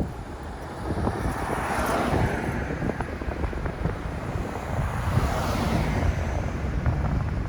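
Outdoor ambience dominated by wind rushing over the microphone, a steady noisy rumble.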